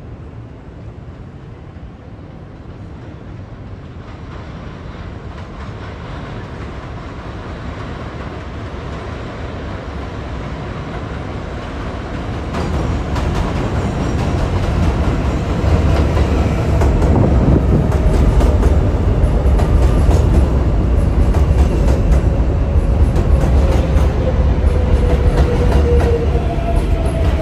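R188 subway train on an elevated line, approaching and pulling into the station. Its rumble grows steadily louder, its wheels click over the rail joints from about halfway, and a whine falls in pitch near the end as it slows.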